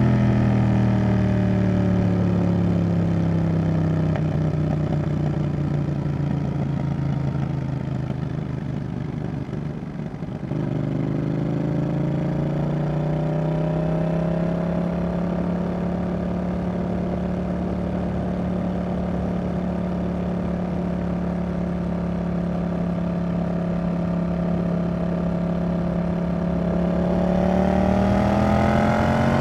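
Yamaha XSR700's 689 cc CP2 parallel-twin engine through a Roadsitalia aftermarket exhaust. The revs fall away for about ten seconds as the bike slows, then pick up again and hold a steady cruise. Near the end they rise as it accelerates.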